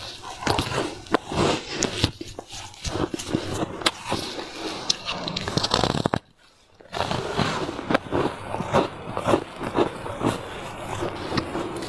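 Close-miked crunching of a block of ice being bitten and chewed: a dense run of sharp cracks and crackles. The crunching breaks off for under a second about six seconds in.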